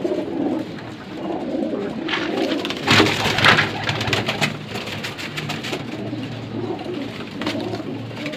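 Domestic pigeons cooing, a continuous overlapping low cooing, with a short louder burst of rustling about three seconds in.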